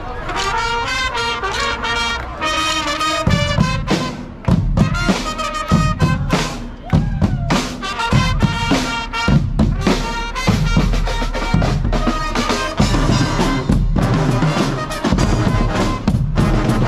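Brass-and-drum carnival band (Guggenmusik) playing loudly, trumpets and trombones over drums; the heavy drum beat comes in about three seconds in.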